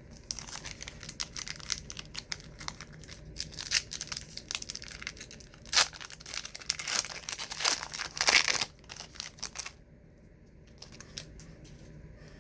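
A trading-card pack's wrapper crinkling and being torn open, with the loudest tearing about six seconds in and again around eight seconds; after about ten seconds only a few soft crackles remain.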